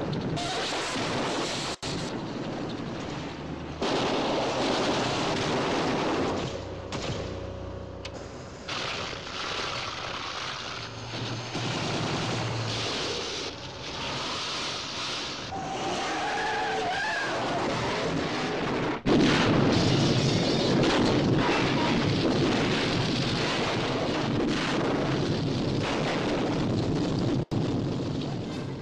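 Action-film sound effects from spliced scenes: car engines, tyre skids and bangs, broken by several abrupt cuts, the loudest part coming after the second cut.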